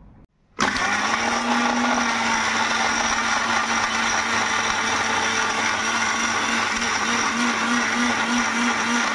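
Electric mixer grinder running at speed in its steel jar, grinding muskmelon chunks with peanuts, cashews and sugar: a loud steady whir with a hum, starting about half a second in, the hum starting to pulse near the end.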